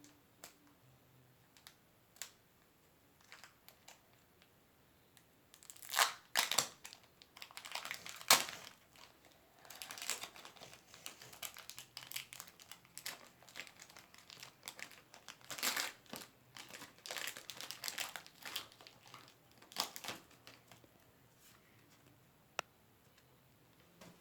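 Foil Pokémon card booster pack being torn and crinkled open by hand. A few faint clicks come first, then about a quarter of the way in the wrapper starts crackling and tearing in bursts, loudest at first, for some fourteen seconds. A single sharp click comes near the end.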